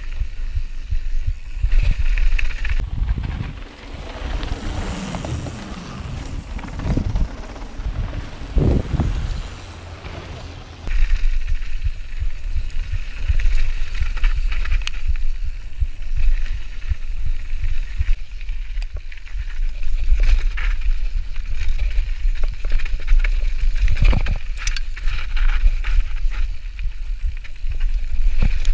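Mountain bike descending a bike-park trail at speed: tyres rolling over dirt and gravel, and wind rushing over the camera's microphone, with knocks and clatter from bumps. It gets noticeably louder about a third of the way in, and there is a sharp knock a few seconds from the end.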